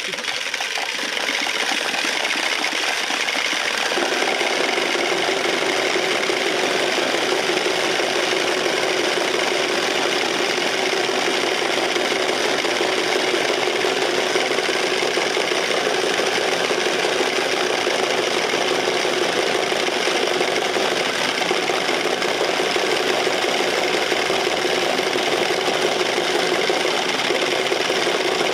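Many wooden Easter rattles (Klappern) worked together, a dense, steady clatter that builds over the first few seconds.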